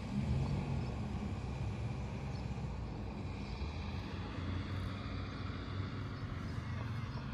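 A car engine running steadily with a low rumble.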